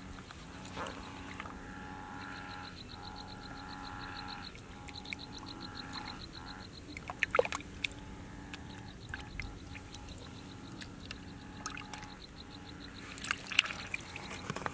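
Field ambience of calling frogs and insects: steady calls throughout, with a rapid pulsing trill for a couple of seconds near the start, and a few short clicks, more of them near the end.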